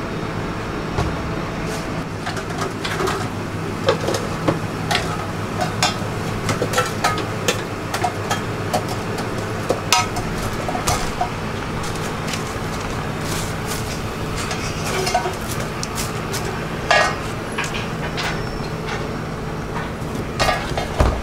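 Kitchen clatter: scattered clicks and clinks of metal tongs and utensils against stainless-steel food trays, over a steady low hum.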